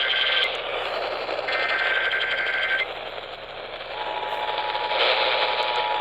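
Emergency Alert System signal received over AM radio hiss. A digital header data burst of steady high tones ends just after the start, and another follows at about 1.5 s, lasting just over a second. About four seconds in, the steady two-tone attention signal begins, announcing a severe thunderstorm warning.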